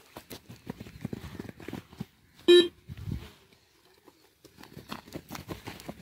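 Irregular footfalls of people running on grass. About two and a half seconds in, one short, loud tone held at a steady pitch.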